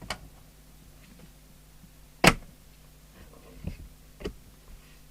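Handling of a CB radio and tools on a workbench: a few sharp knocks and clicks, the loudest about two seconds in, over a faint steady hum.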